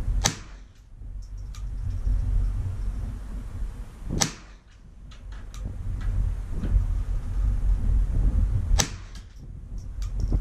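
Three sharp .22 LR rifle shots from a Bergara BXR Carbon semi-automatic rimfire rifle, about four and a half seconds apart, with wind rumbling on the microphone between them.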